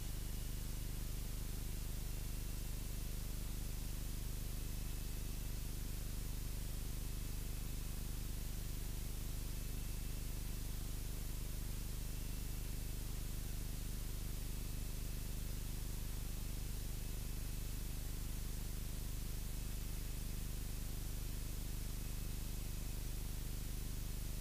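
Cessna 172's engine and propeller at reduced pattern power, a steady low drone under hiss, heard muffled through the cockpit intercom audio, with a faint steady high whine.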